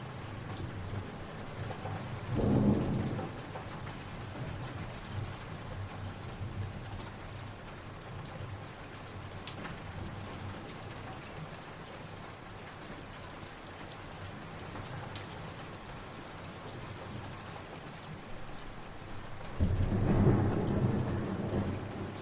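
Steady rain falling, with two low rolls of thunder: a short one about two and a half seconds in and a longer, louder one starting near the end.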